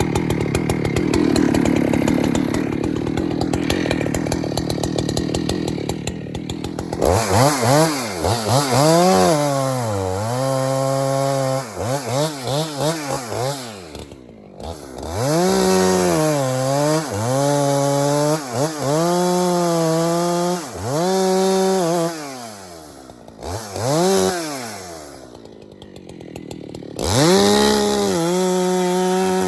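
Chainsaw running, its engine speed rising and falling again and again as the throttle is worked, held at a steady high speed for stretches of a few seconds, with short drops to a lower idle in between.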